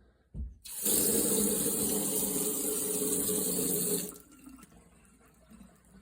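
A brief knock, then a water tap running hard for about three seconds before it is shut off abruptly.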